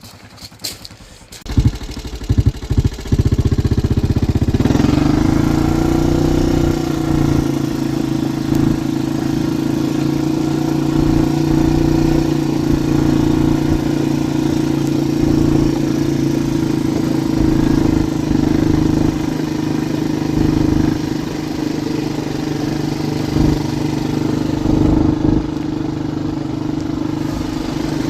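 Four-wheeler (ATV) engine starting with a few short revs, then picking up speed about four seconds in and running at a steady pitch.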